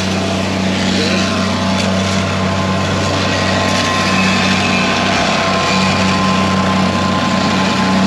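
An engine running steadily at an even pitch, with no revving.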